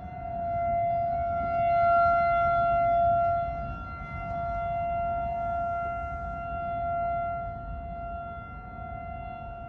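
Outdoor civil defense siren sounding a tornado warning on one steady pitch, growing louder and fainter by turns.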